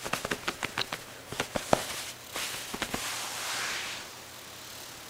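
A cat's mouth clicking quickly and unevenly as it licks and mouths at the bedsheet close up, followed by a soft rustle of the sheet after about three seconds.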